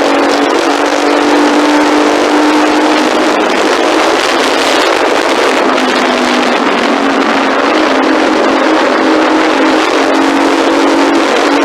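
Engine running steadily, a loud continuous drone whose pitch wavers slightly.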